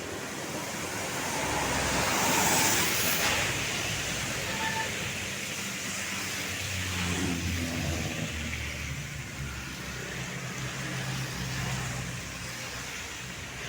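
Road traffic passing close by. One vehicle goes by loudest about two to three seconds in, and then a low, steady engine drone carries on for several seconds.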